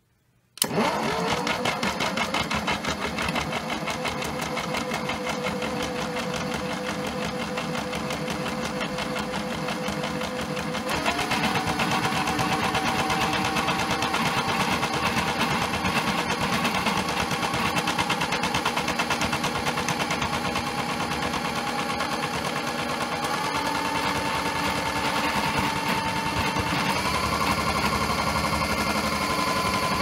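Toy washing machine's small electric motor starts abruptly and runs with a steady whine as the drum spins a load thick with suds, a sudslock spin. The motor steps up in speed about a third of the way in and twice more near the end.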